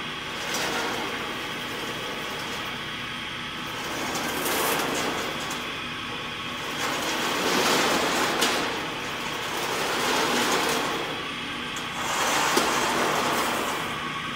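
Saw-filing shop machinery running, a steady mechanical noise that swells and fades every three to four seconds, with a couple of light clicks.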